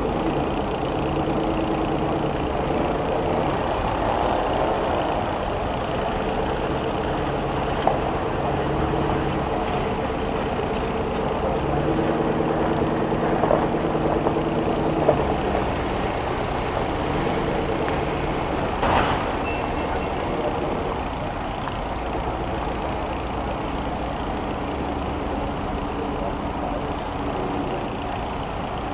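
School bus engines running and revving, their pitch rising and falling in steps, with a few sharp bangs of impact, the loudest about nineteen seconds in.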